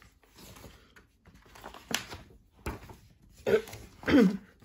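Pages of a softcover picture book being opened and pressed flat by hand: soft paper rustling with a few small taps. Two short vocal sounds come near the end, the second falling in pitch.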